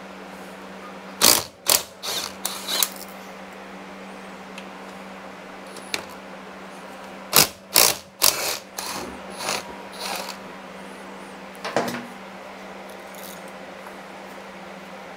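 Socket ratchet clicking in short runs as the quarter-inch bolt grounding the negative lead is loosened. There are two bursts of clicks a few seconds apart and a brief one later. A shop fan hums steadily underneath.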